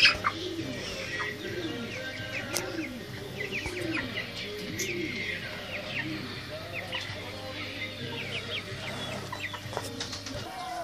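A flock of chickens calling, with a low rising-and-falling call repeating about every two-thirds of a second and many short high chirps over it. There is a brief sharp knock right at the start.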